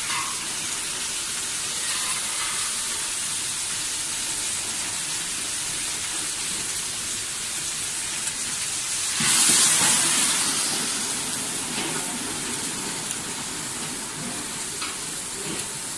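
Lamb shanks sizzling in their own rendered fat in a hot stainless steel pan. A little past halfway, water is poured into the pan and a sudden loud burst of hissing steam rises, then fades over a couple of seconds to a steadier hiss.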